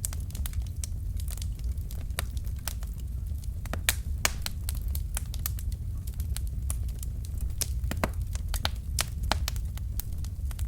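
Wood fire crackling in a fireplace: burning logs giving off sharp, irregular pops and snaps over a steady low rumble of flame, with a few louder pops about four and eight seconds in.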